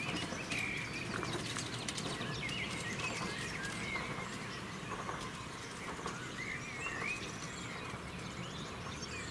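Birds chirping: short, scattered calls over a steady low background noise of open air, with a few faint clicks about one to two seconds in.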